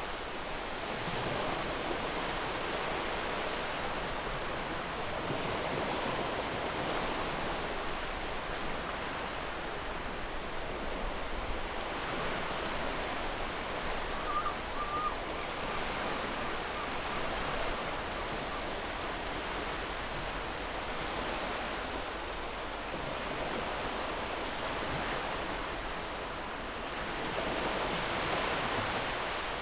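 Ocean surf: a steady wash of breaking waves that swells and eases slowly, louder twice as waves roll in.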